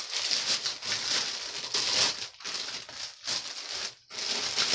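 Clear plastic bag crinkling and rustling as it is pulled and worked off a rifle, in uneven spells with a few short breaks.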